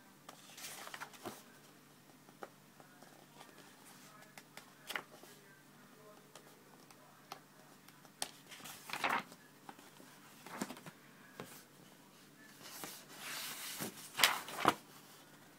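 Paper pages of a thick book being handled: irregular rustles and scrapes of fingers sliding over and turning the pages, with sharp handling knocks near the end, two of them the loudest sounds.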